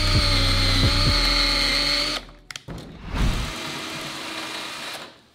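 Cordless drill boring into a vending machine's lock cylinder. It runs steadily and stops suddenly about two seconds in, then runs again more quietly for a couple of seconds and stops near the end.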